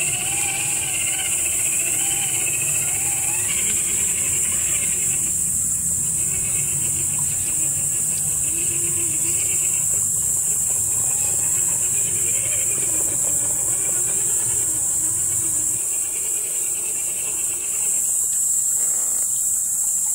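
Traxxas TRX-4 RC crawler's electric motor and gearbox whining, the pitch rising and falling with the throttle as it crawls over rock. It is mostly steady and eases off after about 16 seconds. A steady, high insect drone from the woods runs under it.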